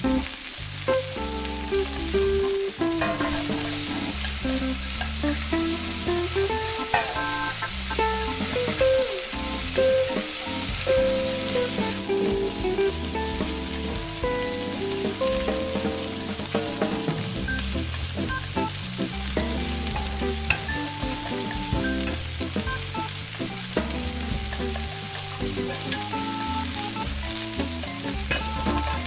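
Shakshuka sizzling steadily in a miniature pan, with a few faint clicks of tweezers, over a soft background tune.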